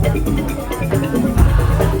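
Madurese tong-tong ensemble music: heavy drum strikes over repeating pitched percussion, with a big hit at the start and another about one and a half seconds in.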